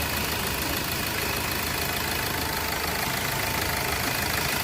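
Hyundai Verna diesel engine idling steadily just after a timing chain replacement; the rattle from the old chain is gone.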